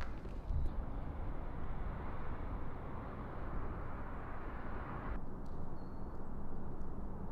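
Outdoor ambient noise: a steady low rumble with a hiss over it, the hiss cutting off sharply about five seconds in.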